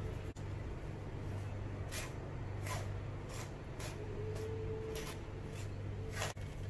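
A metal spoon scraping and pushing powdered fried gram and sugar through a stainless steel mesh sieve, in short strokes about two a second starting about two seconds in, over a steady low hum.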